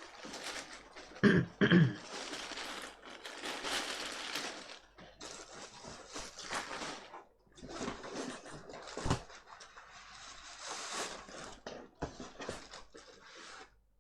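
Loose laptop parts being handled and rummaged through: plastic and metal pieces scraping, rustling and clattering, with two loud short knocks close together about a second in and another sharp knock near the middle.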